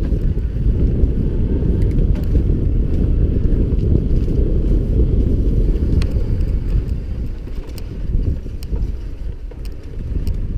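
Mountain bike riding fast down a dirt singletrack, heard from a camera mounted on the bike: a loud, steady rumble of wind on the microphone and tyres on the trail, with a few sharp clicks and rattles from the bike over the bumps. The rumble eases a little over the last few seconds.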